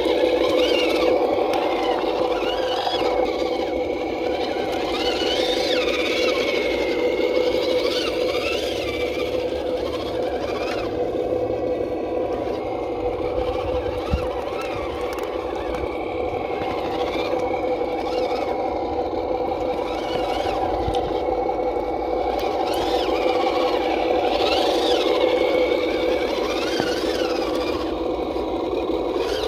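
Electric motor and gearbox of a 1/12-scale RC KrAZ 260 six-wheel truck whining steadily as it drives through water, with a higher whine that rises and falls as the throttle changes.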